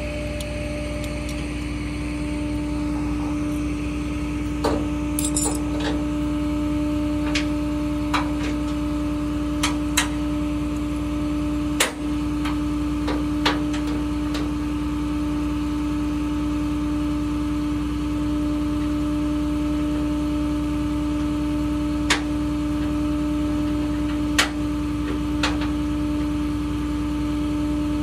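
Flatbed tow truck's engine idling with a steady, constant hum. About a dozen short metallic clinks of tie-down chains and hooks being handled come and go over it, the loudest about twelve seconds in.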